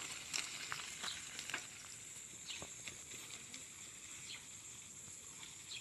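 Faint outdoor ambience: a steady high insect drone with scattered short chirps and ticks, most of them in the first couple of seconds.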